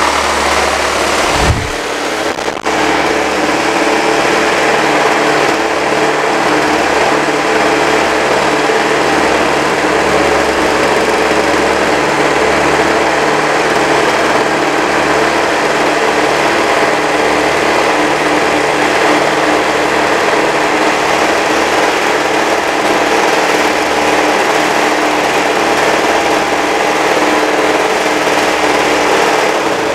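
Toro S-200 snowblower's small two-stroke engine running steadily at a fast, even speed on fresh fuel mix after sitting unused for years. The owner takes the smooth running to mean the only trouble was old dirty fuel.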